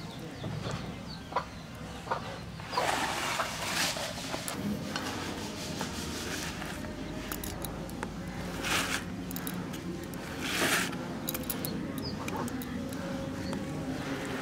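Hand smearing wet spice paste across a banana leaf: soft rubbing and squishing, with a few louder swishes.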